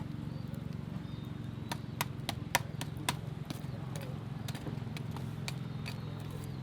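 Irregular sharp knocks or taps, a few spread through the clip and clustered about two seconds in, over a steady low hum.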